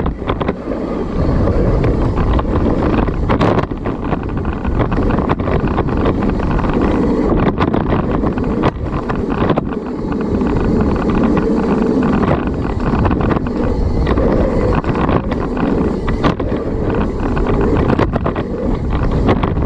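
Wind rushing over the microphone of a 29er mountain bike riding a dirt trail, with steady tyre and drivetrain noise and frequent short knocks and rattles from bumps in the trail.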